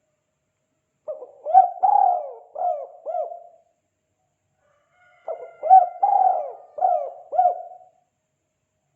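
Spotted dove (tekukur) cooing in the 'kuk 2' call style: two phrases of about five coos each, with a pause of under two seconds between them.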